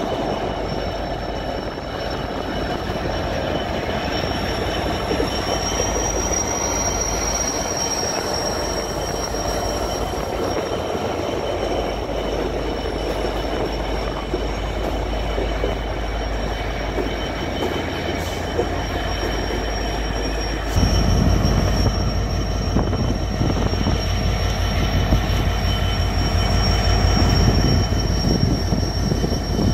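Canadian Pacific freight train rolling slowly past, its steel wheels giving a steady high-pitched squeal over a continuous low rumble of the cars. The rumble gets louder about two-thirds of the way through.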